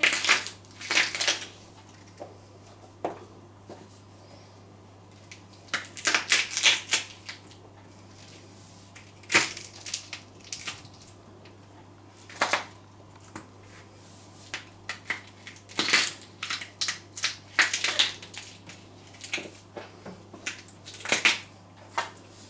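Raw carrots snapping and crunching under the soles and heels of stiletto pumps on a tiled floor, in irregular clusters of sharp cracks with short pauses between.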